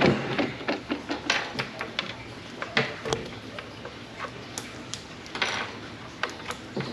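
Irregular light clicks and knocks of small hard plastic and metal parts being handled, with a brief rustle about five and a half seconds in.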